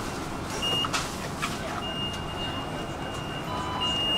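Tram door-closing warning tone: a short high beep, then about two seconds in a long steady high beep that holds on, over the hum and clatter of the platform.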